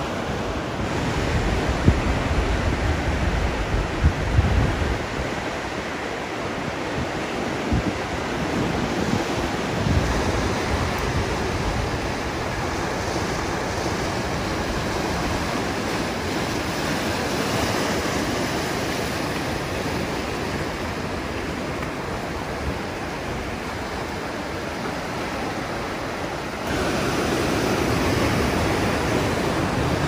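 Ocean surf washing and breaking over shoreline rocks, a steady rush of water. Wind buffets the microphone in the first few seconds, and the surf grows louder near the end.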